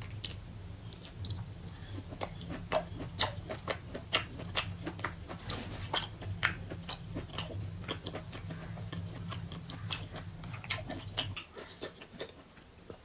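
Close-up chewing and gnawing on a large, fatty piece of mutton held in the hand, with many sharp wet smacking clicks of the mouth. A steady low hum runs underneath and cuts off near the end.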